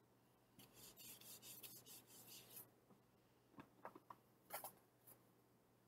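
Faint rubbing of a handheld dry-erase whiteboard being wiped clean, lasting about two seconds, followed by a few light knocks.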